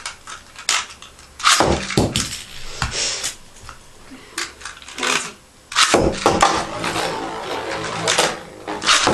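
Sharp plastic and metal clicks and knocks of Beyblade spinning tops and launcher being handled. About six seconds in, a Beyblade is launched into the plastic stadium and spins, rattling and clattering against the stadium floor.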